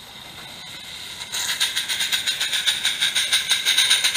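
Accucraft Ruby live-steam garden-scale locomotive approaching. A soft hiss at first, then from about a second and a half in, rapid steam exhaust chuffs, about five a second, growing louder.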